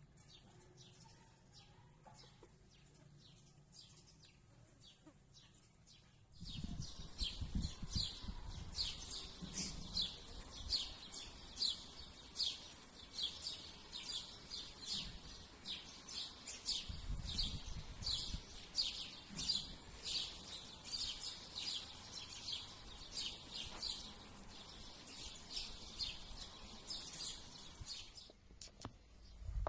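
Small birds chirping in a quick run of short, high chirps, several a second. The chirps are faint at first and much louder from about six seconds in, with occasional low rumbles underneath.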